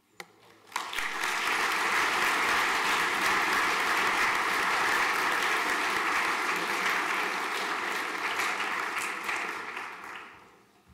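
A large audience applauding: the clapping starts about a second in, holds steady, and dies away near the end.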